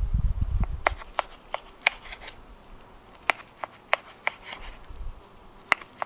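Knife and fork carving a cooked steak on a cutting board: irregular sharp clicks of the blade and fork tines against the board, with a low rumble during the first second.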